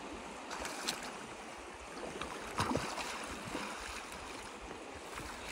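Steady rush of river current, with brief splashes about a second in and louder ones near the middle as a hooked steelhead thrashes in a landing net.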